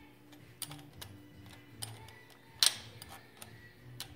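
Irregular small metallic clicks and clinks of a spanner working the distributor clamp bolt and its square-headed nut, with one louder, sharper ringing clink about two and a half seconds in.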